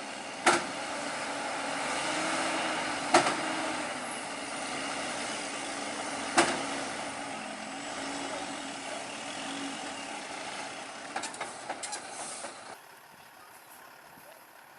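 Truck engine running under a steady noisy rumble, broken by three loud sharp knocks about three seconds apart, then a quick run of clicks near the end.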